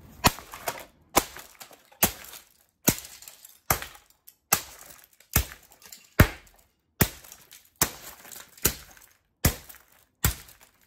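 Plastic record player being smashed apart with about thirteen heavy blows, evenly paced a little more than one a second, each with a sharp crack of breaking plastic and parts against the concrete floor.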